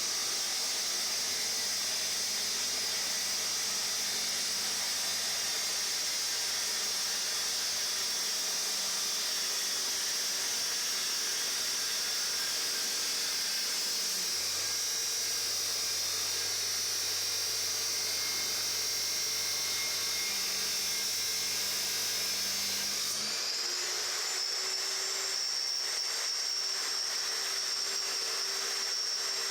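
Chop saw cutting through a metal gate, a steady high-pitched grinding whine under load; about two-thirds of the way through the tone shifts and settles as the cut goes on.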